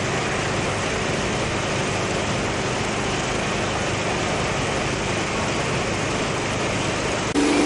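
Small combustion engine running steadily with a noisy rumble, typical of firefighters' portable pump or generator equipment at a flooded building. Near the end it cuts suddenly to a louder, more even engine drone.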